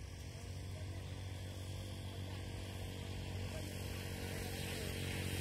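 A motorcycle engine running steadily off-screen, a low hum that grows gradually louder as it approaches.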